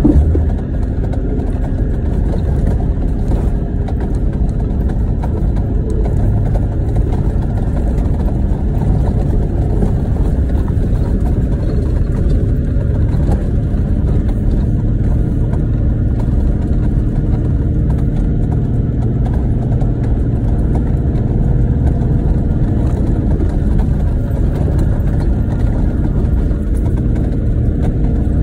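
Toyota Land Cruiser 78 series Troopy driving over a rough, rocky gravel track, heard from inside the cabin: the engine runs steadily under the low rumble of tyres and suspension on the stones.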